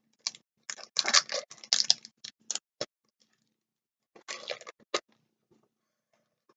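Foil wrapper of a Pokémon TCG booster pack crinkling and tearing as it is opened by hand, in short crackly bursts during the first three seconds and again about four seconds in.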